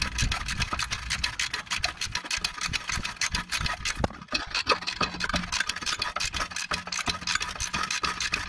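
Ratchet wrench clicking in a fast, even run of clicks as a rusted exhaust flange stud is backed out of the catalytic converter flange.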